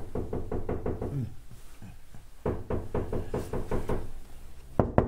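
Rapid knocking on a door, about seven knocks a second, in a long run and then, after a short pause, a second long run. The knocks grow harder near the end.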